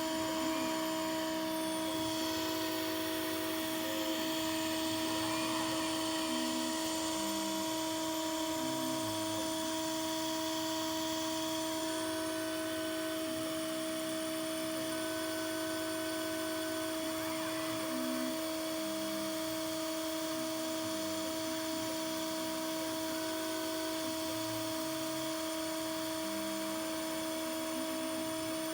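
Home-built laser engraver with an Atomstack M50 laser module running a job. Under a steady hum, short stepper-motor tones change pitch every fraction of a second as the head moves in short strokes.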